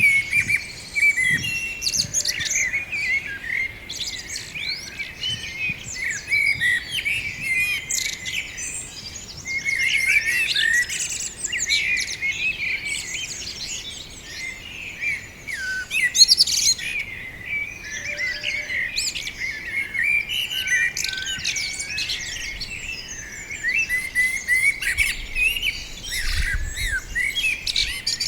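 Several songbirds chirping and singing at once, a dense, continuous chorus of quick high twitters and trills.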